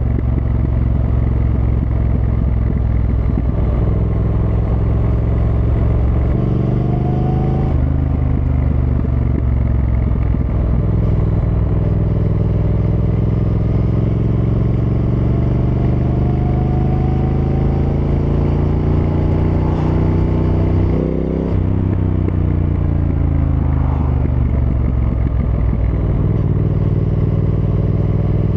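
Triumph Thruxton R's 1200 cc parallel-twin engine under way on the road. Its pitch climbs under throttle and drops sharply a few times, at about 6.5 and 8 seconds in and again near 21 seconds, in the way of upshifts, then keeps rising and falling.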